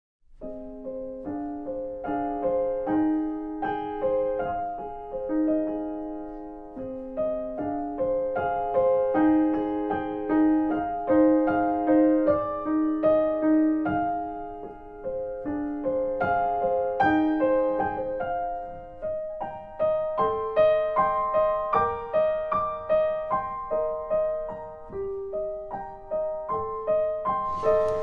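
Piano music: a slow, gentle melody of single notes over sustained lower notes. Just before the end a short hissing noise joins it.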